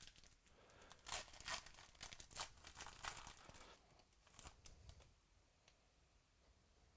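Trading card pack being handled: a quick run of crinkling, tearing rustles of the foil wrapper and cards, which stops about five seconds in.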